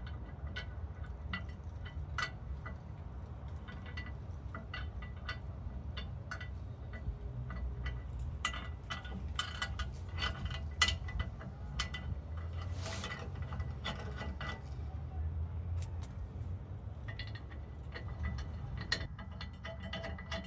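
Irregular metallic clicks and clinks of lift-kit hardware and hand tools being handled and fitted under a pickup's rear axle, a few ringing briefly, over a steady low rumble.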